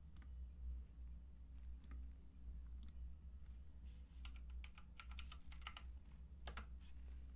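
Faint clicks on a computer keyboard and mouse. There are a few single clicks early on, then a quick run of keystrokes typing a search word about four to five seconds in, all over a low steady hum.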